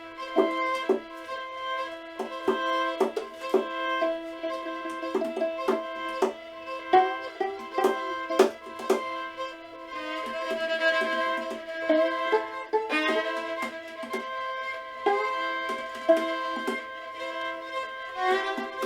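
Instrumental music: held sustained notes with many short, sharply struck notes over them.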